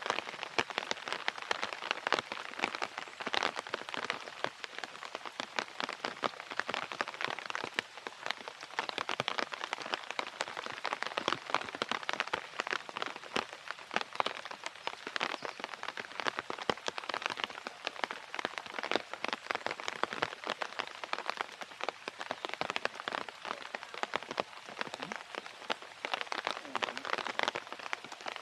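Steady rain: a dense, even patter of many small drops.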